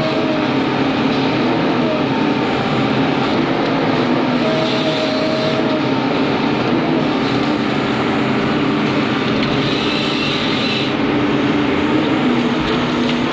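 Excavator-mounted log processor running hard, heard from inside its cab: a steady engine and hydraulic drone with a whine that shifts in pitch as the processor head works the logs.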